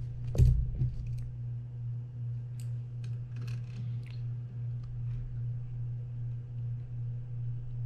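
Scattered light clicks of hand tools on metal as a bent reel clamp screw is slowly worked back into shape, with one knock about half a second in, over a steady low hum.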